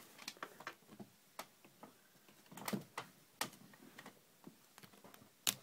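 A kitten's claws scratching and tapping at a wooden drawer and fabric as it plays and bites: irregular light clicks and scrapes, with one sharper click near the end.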